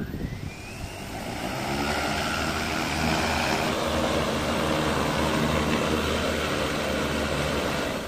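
EFT E616P six-rotor agricultural spraying drone spinning up its propellers and lifting off, with a rising whine as the motors speed up. It then hovers in a steady deep rotor hum, and the hum drops away at the very end as it sets down.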